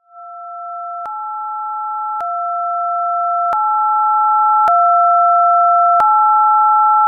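Electronic emergency alert attention tone: a steady high tone held over a lower tone that steps back and forth between two pitches about once a second, with a faint click at each change. It swells in loudness for the first few seconds, then holds and cuts off abruptly.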